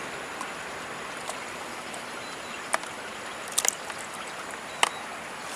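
Steady rush of flowing water in a concrete canal, with a few short sharp clicks, about three seconds in, a quick pair a little later, and the loudest near the end.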